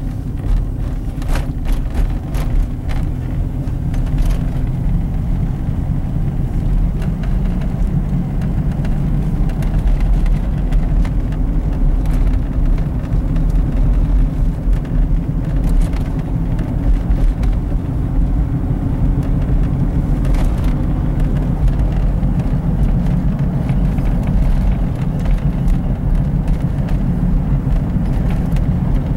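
Steady low road and engine rumble heard from inside a moving car, with a few short clicks here and there.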